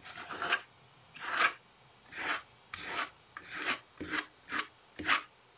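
A spatula scraping in short repeated strokes, a little under two a second and quicker near the end, across paper wet with matte medium. It is smoothing the glued paper flat and pressing out wrinkles.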